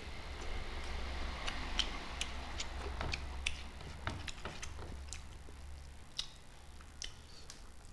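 Close-miked eating sounds: chewing with irregular, sharp wet mouth clicks and smacks as a meal of rice is eaten by hand.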